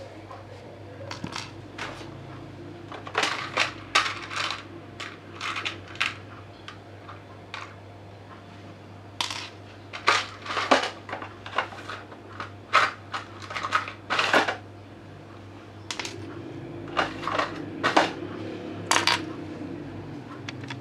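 Small metal parts and tools clinking and clicking as electronic components are handled, in irregular clusters of sharp clicks, over a low steady hum.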